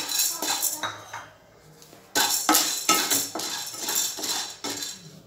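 Sago pearls being dry-roasted in a nonstick wok, stirred with a wooden spatula: the pearls rattle and the spatula scrapes across the pan in repeated strokes, about two to three a second, with a short pause a little over a second in.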